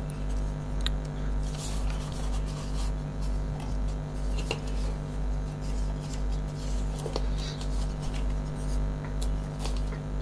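Paper pages of a model kit's instruction booklet being turned and handled: faint rustles and a few soft clicks, over a steady low hum that pulses evenly.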